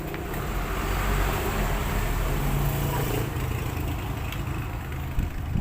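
A steady low mechanical rumble like an engine running, a little louder from about a second in, with a short knock near the end.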